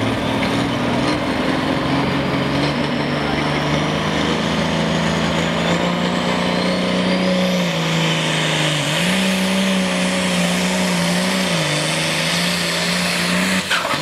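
John Deere hot farm pulling tractor's turbocharged 466 cubic-inch diesel engine running hard and held at high revs, its pitch dipping and coming back up twice. A thin high whistle climbs in pitch over several seconds.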